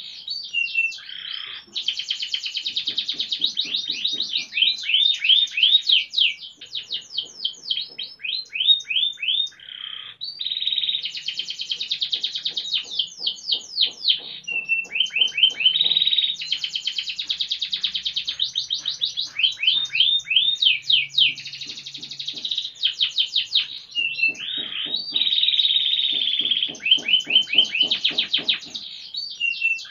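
A caged canary singing a long, nearly continuous song of repeated-note tours, switching between fast dense rolls and slower runs of sweeping chirps, with only brief breaks.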